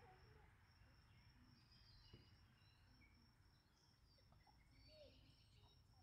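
Near silence: faint outdoor ambience, a steady high insect drone with a few faint bird chirps.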